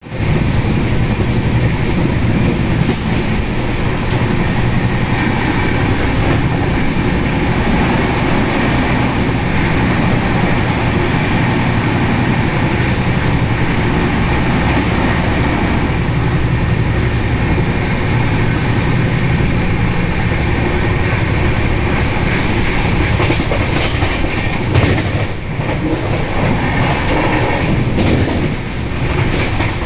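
A passenger express train running at speed, heard from an open coach doorway: a steady, loud rumble of wheels on rail, with a few sharper clacks near the end.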